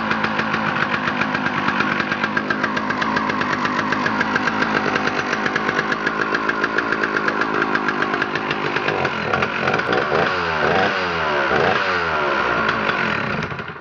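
Small two-stroke chainsaw engine running at high speed. From about nine seconds it is revved up and down in quick, repeated swoops, and it cuts off abruptly near the end.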